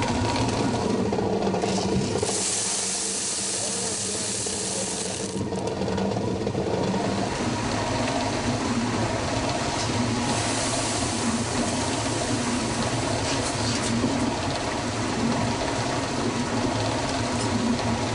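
Traditional stone corn mill running: the upper millstone turning, with a steady mechanical clatter from the mill and its wooden feeder under the grain hopper. A louder hiss comes for a few seconds near the start, and again briefly about ten seconds in as corn kernels are poured into the hopper.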